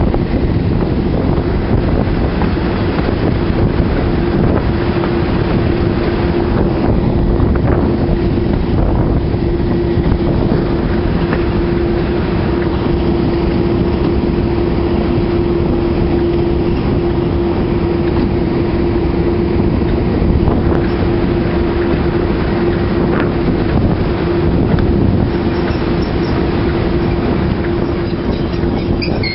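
English Electric class 37 diesel locomotive with its V12 engine running under power as it hauls the train: a loud, steady engine drone with a constant hum, mixed with wheel noise on the rails and wind on the microphone.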